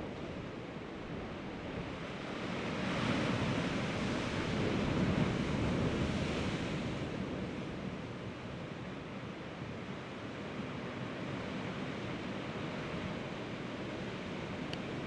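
Sea surf washing against a rocky shore, a steady rush with one wave swelling louder a few seconds in and then ebbing away.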